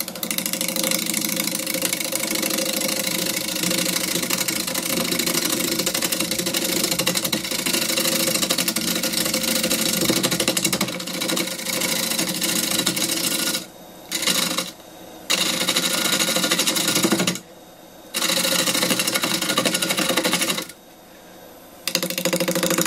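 Bowl gouge cutting a spinning honey locust bowl blank on a wood lathe at about 860 rpm: a loud, rapid, chattering rasp, because the uneven half-log blank is cut only in places on each turn. The cut stops briefly four times in the second half, leaving only the lathe's running hum.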